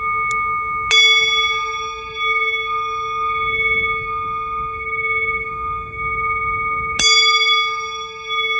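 Singing bowl ringing steadily with a slow wavering pulse in its low tone. It is struck twice, about a second in and about six seconds later, and each strike brings a bright new ring over the sustained hum.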